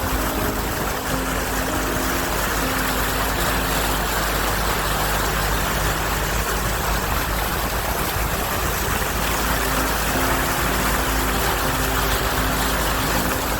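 Suzuki SJ410 4x4 driving along at a steady pace: its engine running evenly under a constant hiss of road noise.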